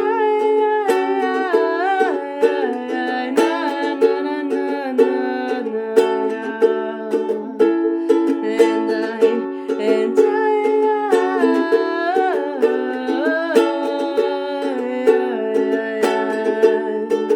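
Ukulele strummed in a steady rhythm, with a wordless melody line that slides between notes over the chords.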